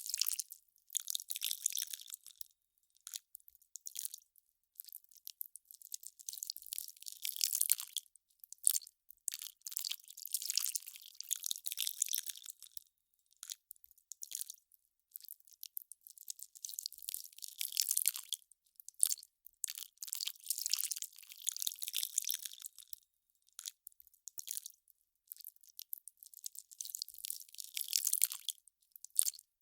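Ice crackling as it melts: irregular clusters of fine, high-pitched crackles and pops, broken by short gaps.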